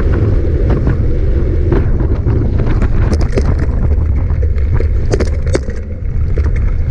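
Heavy wind rumble on the microphone with the clatter of a mountain bike riding over rough, stony ground: a steady low rumble with many sharp clicks and rattles scattered through, most of them in the middle and second half.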